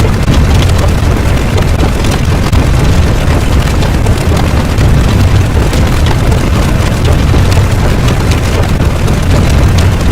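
Loud, steady, deep rumbling noise with faint crackling over it, like a sustained explosion or eruption sound effect.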